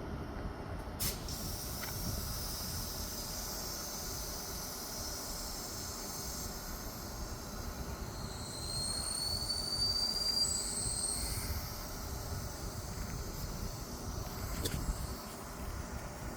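Sydney Trains Tangara electric train at the platform, rumbling with a steady hiss. High wheel squeals rise in pitch twice, about eight to eleven seconds in. Sharp clicks come about a second in and near the end.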